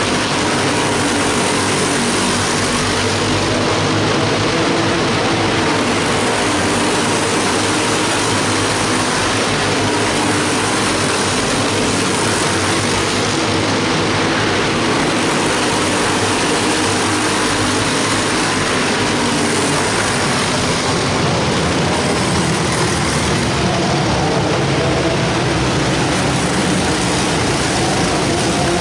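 A field of quarter midget race cars running laps together, their small single-cylinder engines making a loud, steady drone inside a large arena hall.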